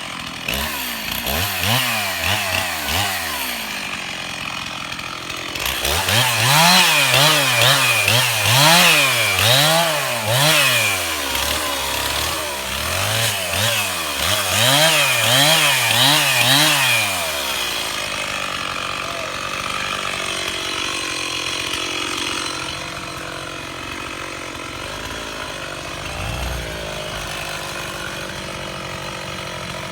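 Stihl MS311 two-stroke chainsaw running hard, its engine speed swinging up and down about once a second. From about 18 seconds in it settles into a steadier, lower engine note.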